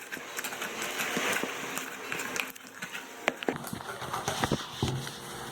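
Homemade slime, made with EVA foam clay, being handled and stirred by hand: a soft, wet squishing, then several sharp little pops and clicks.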